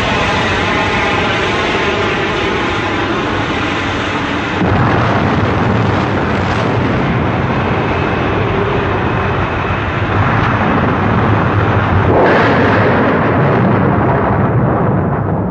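Loud, dense rumble of explosions, with a wavering aircraft-engine drone in the first few seconds. The rumble surges suddenly about four and a half seconds in and again about twelve seconds in.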